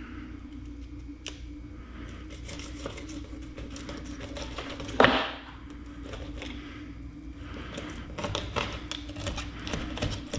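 Fillet knife cutting into a bluegill on a wooden board: crackling, tearing scrapes as the blade works through scales and skin, with one louder, sharper scrape about halfway through. A steady low hum runs underneath.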